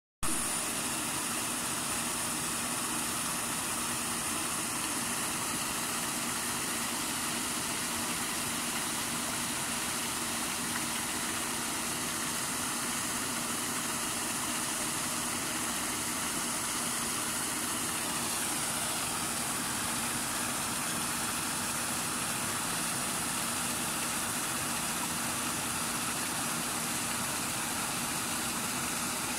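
Paddle wheel aerator running steadily in a pond: a constant motor hum under the even rush of its paddles churning and splashing the water.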